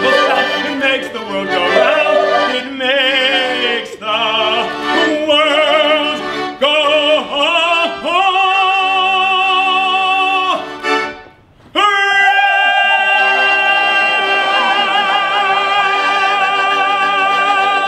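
A singer performing in a high, operatic style with strong vibrato, holding long notes. There is a brief break about two-thirds of the way through, then one long sustained note.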